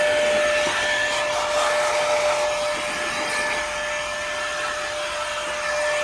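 Jupiter JP-6000 cordless air gun running on its highest (second) speed: a steady motor whine over the rush of blown air.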